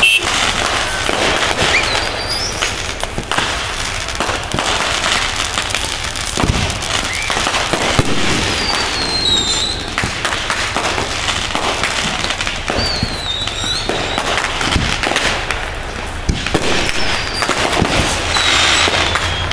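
Aerial fireworks going off: repeated bangs and dense crackling from bursting shells, with several high whistles that fall in pitch.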